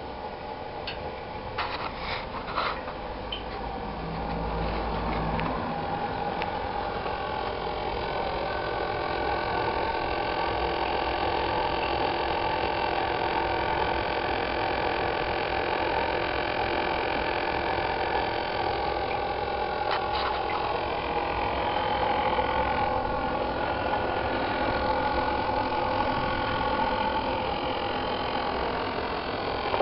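Steady machine hum made of several steady high tones, growing louder over the first several seconds and then holding, with a few clicks about two seconds in and again near twenty seconds.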